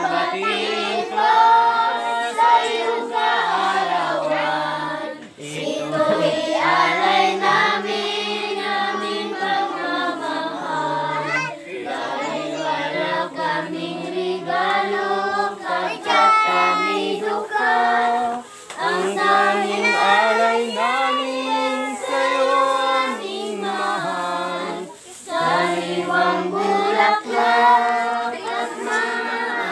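A group of voices, children's among them, singing a song together.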